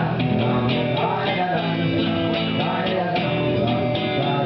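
Live band playing an instrumental passage of a folk-rock song, with a strummed guitar keeping a steady rhythm.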